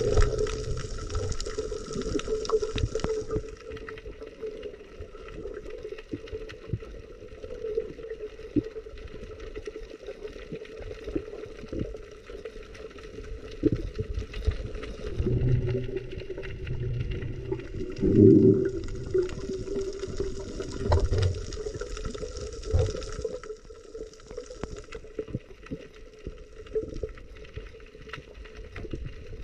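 Water sloshing and gurgling over a steady low hum, with a few louder swirling surges, the strongest about two-thirds of the way through.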